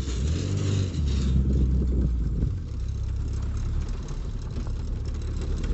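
Vehicle engines running at low speed, heard from inside a car: a low, steady drone that eases off a little about two and a half seconds in.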